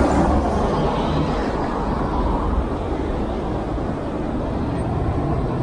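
Road traffic: cars driving past on a city street, a steady rushing noise with a low rumble.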